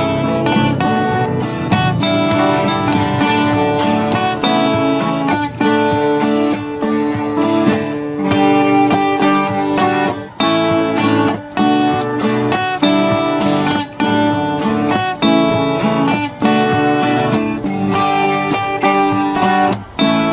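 Background music led by a strummed acoustic guitar, with steady chords and a regular strum.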